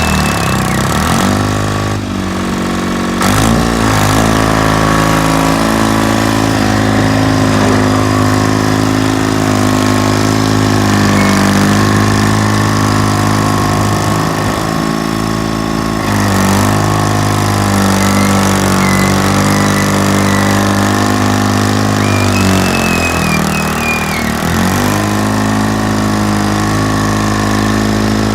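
General Motors diesel engine of a John Deere 440 industrial crawler tractor running steadily. Its speed dips and comes back up a few times.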